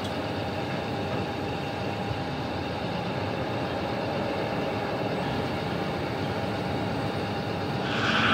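Heavy diesel mining machinery running steadily, a constant engine and machine noise. It grows louder near the end.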